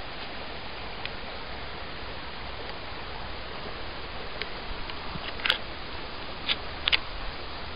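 Steady rush of flowing river water close to the microphone, with a few short sharp clicks in the second half.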